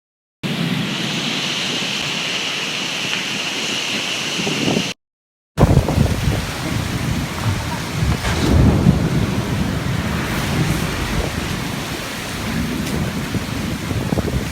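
Heavy rain falling in a steady hiss. After a brief silent break about five seconds in, the rain comes back with strong wind gusting over the microphone in low rumbles that swell and ease.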